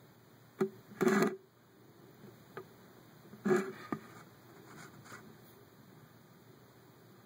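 A few short rustles and clicks over a faint steady hiss: one click, then a brief scraping rustle about a second in, and another rustle followed by a click at three and a half to four seconds.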